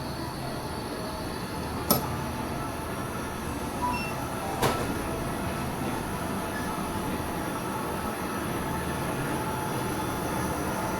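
Steady mechanical hum of a convenience store's interior: refrigeration and ventilation noise. A sharp click comes about two seconds in and another a little before the middle, with a short electronic beep between them.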